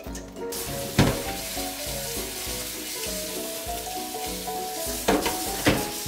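Tap water running onto a non-stick frying pan in a stainless-steel sink, a steady hiss that starts about half a second in. The pan knocks against the sink once about a second in and twice near the end. Background music plays throughout.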